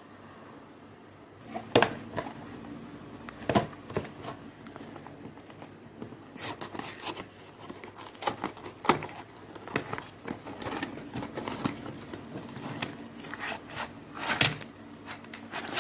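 Packaging being unwrapped by hand: crinkling and rustling of wrapping with short tearing sounds and scattered clicks and taps, busiest in the second half.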